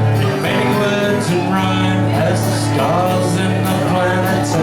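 A man singing a country-style song to acoustic guitar, performed live.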